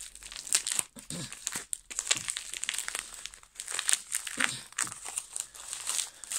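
Clear plastic packaging crinkling and crackling in irregular bursts as it is squeezed and pulled open by hand.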